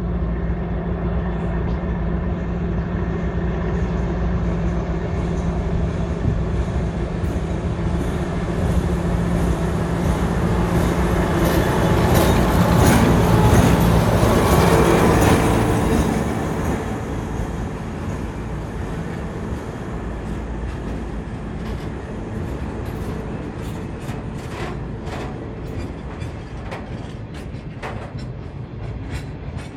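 A diesel-electric locomotive hauling a freight train of tank wagons passes close by: its steady engine drone grows louder, peaks as the locomotive goes past about halfway through, then fades. The wagons' wheels then clack rhythmically over the rail joints.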